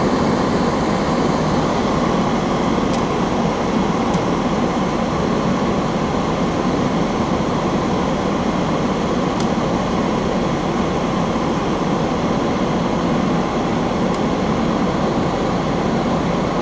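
Large ventilation fan running steadily, a constant rush of air, with a few faint ticks.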